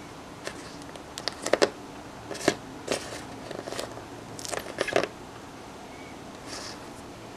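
A makeup-sponge squishy coated in dried puffy paint being squeezed between fingers and released, giving irregular clusters of crackling and crinkling. The crackles come in bursts during the first five seconds or so, then stop.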